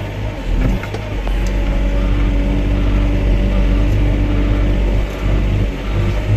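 Excavator's diesel engine running steadily, with a low, even hum and a few faint clicks from the machine.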